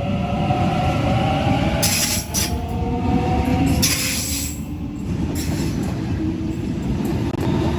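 Electric suburban train moving through the station: a steady low rumble of wheels on track, with high squealing tones from the wheels in the first three seconds and several short bursts of hiss.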